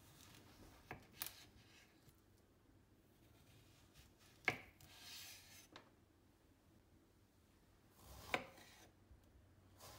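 Kitchen knife slicing vegetables on a bamboo cutting board: a few separate sharp knocks of the blade meeting the board, the loudest about halfway through, with a brief soft rubbing sound just after it.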